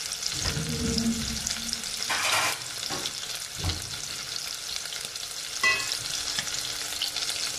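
Spice-marinated chicken pieces sizzling and crackling as they shallow-fry in hot oil in a wok, with small spitting pops throughout.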